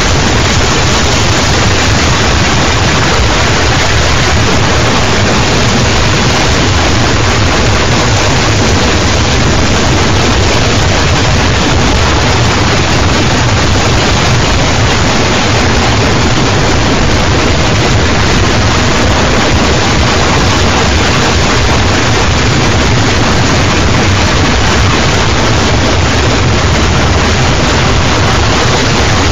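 Harsh noise music: a loud, dense, unchanging wall of distorted noise, heaviest in the low end.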